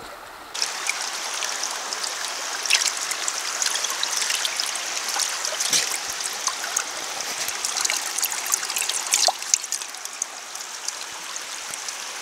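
Shallow creek water rushing and splashing over rock close to the microphone, with many small droplet ticks. It gets louder suddenly about half a second in.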